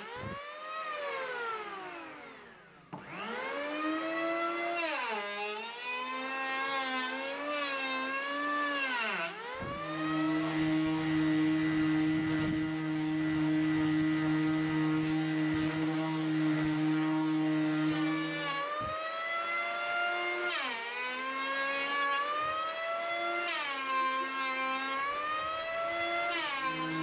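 An electric hand planer running over laminated plywood, its motor whine dipping and recovering in pitch several times as it cuts. Near the start the planer winds down almost to a stop and spins back up. In the middle, for about nine seconds, a random orbital sander runs at one steady pitch; near the end the planer's dipping whine returns.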